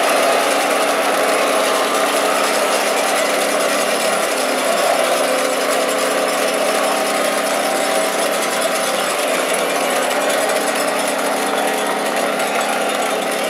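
Loud arena crowd cheering a goal, with a steady goal horn sounding over it.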